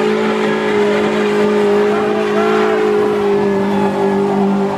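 A car engine held at high, steady revs during a burnout, with the spinning tyres squealing underneath.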